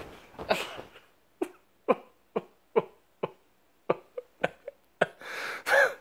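A person's short, sharp bursts of breath and voice, roughly two a second, with a longer breathy burst near the end.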